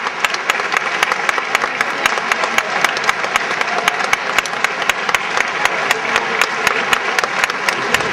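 Audience applauding steadily, with fast, even claps from someone close by standing out above the rest.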